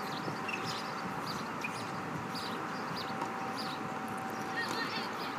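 Steady outdoor background noise with a faint steady hum and short, scattered high chirps through it.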